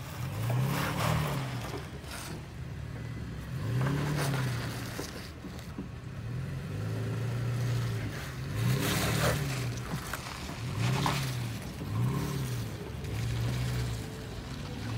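Pickup truck's engine revving up and down in about ten short swells as it crawls up a steep rocky hill climb, with tyres crunching and scraping over rock.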